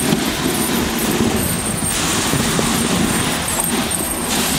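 Dog sled runners scraping and clattering over the rough crust of a glacier, a steady rattle from a sled with no suspension.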